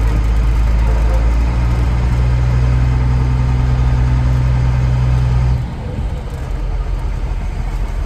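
Diesel engine of an M1078 LMTV military truck heard from inside the cab as it drives slowly, a loud steady low drone. Its note rises slightly about one and a half seconds in, then the drone drops away sharply about five and a half seconds in, leaving a quieter, rougher running sound.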